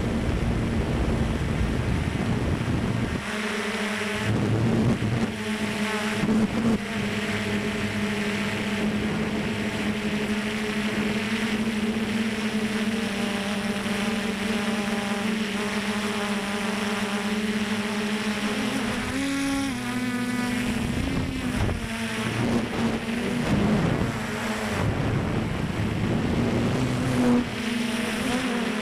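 Multirotor drone's motors and propellers humming steadily, with wind noise on the microphone; the motor pitch shifts briefly about twenty seconds in.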